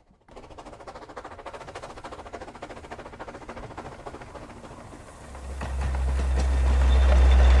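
Narrow-gauge steam train running on the rails, with a quick, even clicking of wheels. A loud low rumble swells from about five seconds in.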